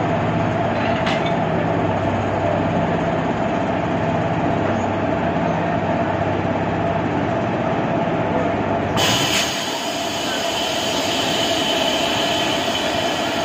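Stationary locomotive running at a standstill, a steady mechanical hum with a high whine over it. About two-thirds of the way through the low hum drops away while the whine carries on.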